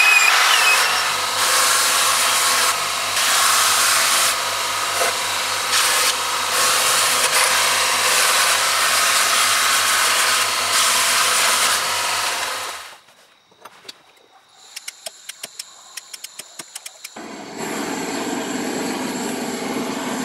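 Power sanding of a wooden knife handle on a spinning sanding disc and belt grinder, with a steady motor hum, stopping abruptly about 13 s in. After a short quiet pause come a run of rapid clicks, then the steady rushing hiss of a propane torch burning in a small firebrick forge.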